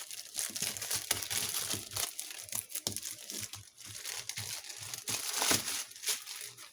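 Packaging being crinkled and crumpled by hand, a dense, continuous crackling that stops near the end.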